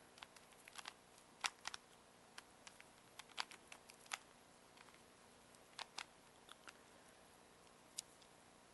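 Rubik's Cube being twisted by hand: quiet, irregular plastic clicks and clacks as its layers turn, a few louder ones about a second and a half in and again between three and four seconds.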